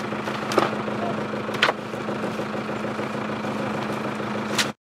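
An engine idling steadily, with three sharp clicks over it; the sound cuts off abruptly near the end.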